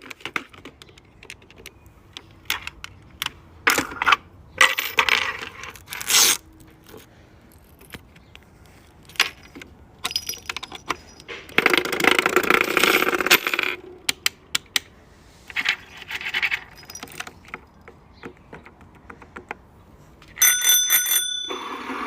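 Fidget toys being handled: scattered sharp clicks and taps, with several bursts of scratchy, rustling noise. Near the end comes a quick run of bright, bell-like rings.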